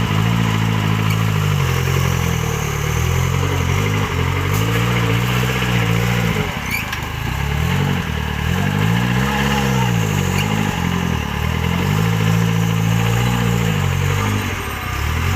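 Off-road 4x4 vehicle's engine revving up and falling back again and again, the pitch swelling and dropping every couple of seconds.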